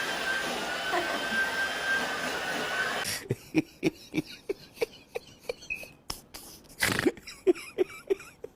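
A small electric blower runs with a steady hiss and a thin high whine. About three seconds in it cuts off, and a run of short soft knocks follows, roughly three a second, with one louder burst about seven seconds in.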